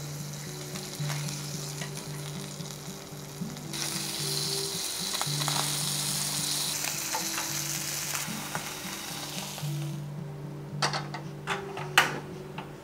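Whole sardines sizzling in a nonstick frying pan on a portable gas stove. The sizzle grows louder for several seconds in the middle, then stops. A few sharp clicks and knocks follow near the end, the loudest one last.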